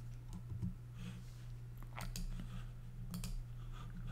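A few sharp clicks at a computer as the presentation slide is advanced, the clearest about two seconds in and again about a second later, over a faint steady low hum.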